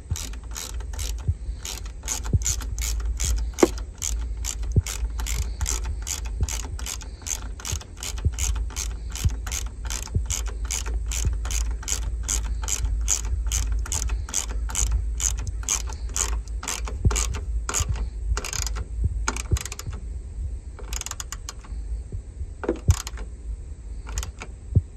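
Hand ratchet socket wrench clicking steadily, about three clicks a second, as it runs down a bolt holding the plastic headlight housing. After about 18 seconds the clicks thin out to a few scattered ones.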